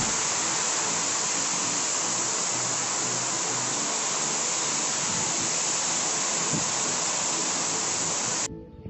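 Waterfall close by: a steady, loud rush of falling water that cuts off suddenly near the end.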